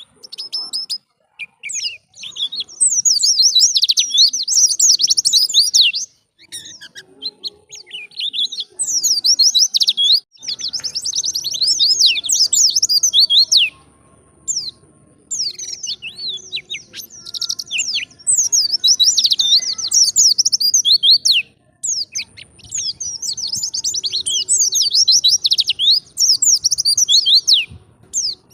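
White-eye (pleci) singing: long bursts of very fast, high-pitched chirping and warbling notes, each burst lasting a few seconds with brief pauses between them.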